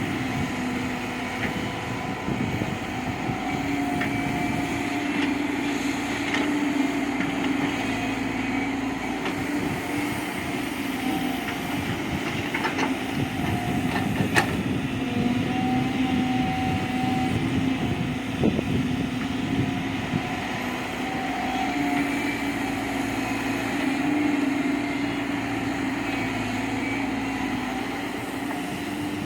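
Diesel engine of a JCB 3DX backhoe loader running under working load, its pitch rising and falling every few seconds as the hydraulics dig and lift. There are a few sharp knocks.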